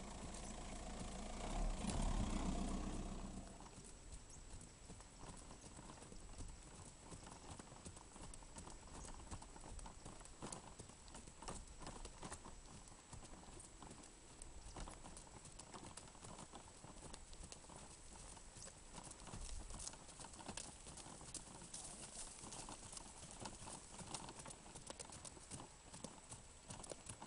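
Hooves of a paint horse walking on a sandy dirt track: a steady run of soft, faint clip-clop hoofbeats. A louder low-pitched noise swells about two seconds in.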